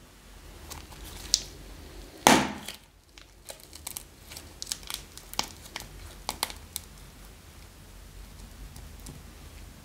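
Thin plastic bag crinkling and crackling as soft modelling clay is squeezed out of it by hand, in a run of sharp little ticks. A single loud, brief, pitched burst comes about two seconds in.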